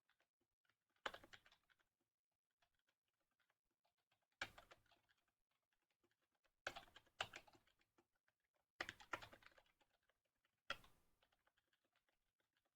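Faint computer keyboard typing: a few keystrokes at a time in short clusters, with pauses of a second or more between them.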